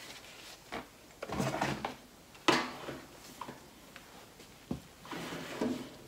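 Handling noises: a few knocks and rustles as a paint cup and a hair dryer are moved about on a paper-covered table. The loudest is a sharp knock about two and a half seconds in.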